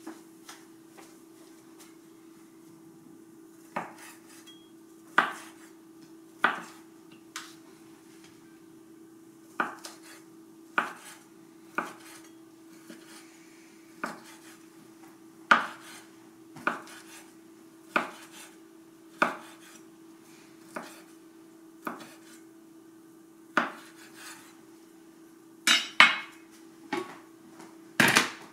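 Cleaver slicing Chinese sausage on a wooden cutting board: single sharp knocks of the blade hitting the board, about one a second, over a steady faint hum. Near the end, a louder clatter as a glass lid is handled and lifted off an enameled cast iron skillet.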